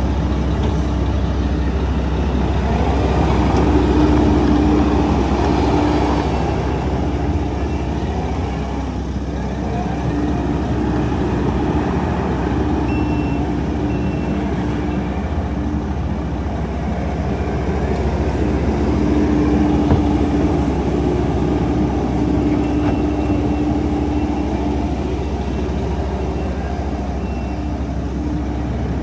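Kubota SVL95-2 compact track loader's four-cylinder turbo-diesel engine running steadily as the machine drives and turns. It swells a little about four seconds in and again near the twenty-second mark. A pitched whine over the engine comes and goes.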